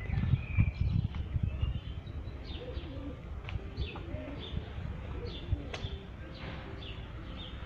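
Birds chirping in many short, quick, falling calls, with a low cooing in the middle typical of a pigeon. A low buffeting on the microphone fills the first couple of seconds.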